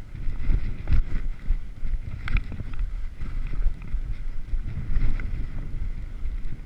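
Wind rumbling and buffeting on a head-mounted camera's microphone while skiing, with the scrape and chatter of skis (2013 Blizzard Bonafide) running over choppy, tracked-up snow and a few sharp clatters.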